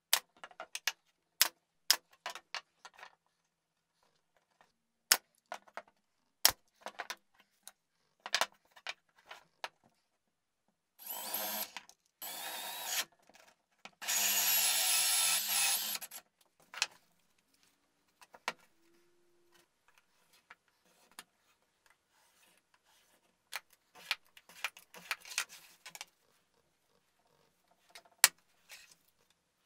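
Pneumatic brad nailer firing several single shots into plywood, each a sharp snap. Near the middle, a cordless drill with a hole saw cuts through plywood in two bursts of a few seconds each, the second the louder. Light knocks of pieces being handled follow.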